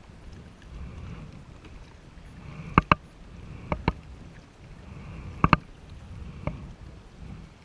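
A kayak being paddled: sharp, hard knocks, mostly in quick pairs, as the paddle strikes the kayak's hull, over a low rumble and soft water swishes.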